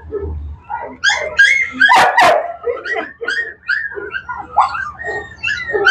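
A griffon puppy yelping and whimpering in rapid, high-pitched cries while held in a cloth sling for a vaccine injection.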